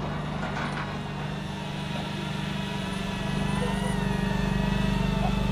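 Drone propellers humming with a steady whine, shifting slightly in pitch and getting gradually louder as it flies closer.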